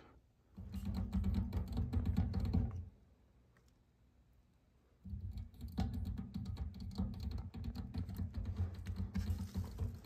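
Failed GE half-horsepower ECM blower motor in a WaterFurnace geothermal heat pump making a rough, rapid rattling clatter in two bouts. The first lasts about two seconds and stops abruptly; the second starts about five seconds in and keeps going. This is the sound of the failed motor, the way about 98% of ECM motors fail.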